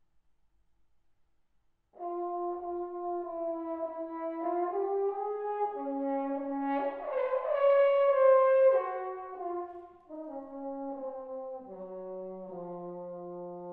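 Solo French horn playing a slow unaccompanied phrase: it comes in about two seconds in, swells to its loudest held notes around the middle, then falls back softer and descends to a long low held note near the end.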